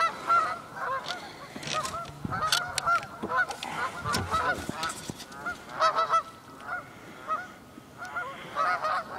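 Canada goose honking over and over in quick clusters of short calls as it struggles, hooked on a fishing line, with a few sharp knocks about two to three seconds in.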